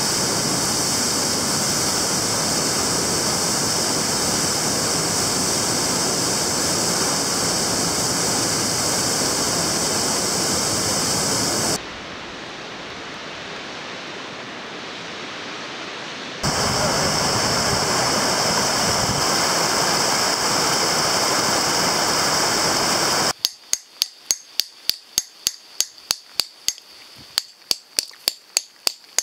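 Steady rush of falling water, dropping quieter for a few seconds in the middle. About 23 seconds in it gives way to sharp metal blows, about three to four a second with a short pause: a hammer striking a hand-held spit driver, drilling a hole in rock for a spit bolt.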